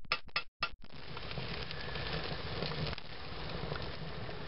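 Chili cooking in a pot inside an open barbecue smoker: a steady crackling hiss, after a few sharp clicks in the first second.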